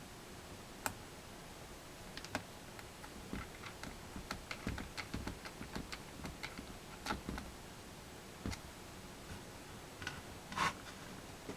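Scattered small clicks and taps of hands working on a laptop's plastic case and parts, densest in the middle, with a louder clatter about ten and a half seconds in.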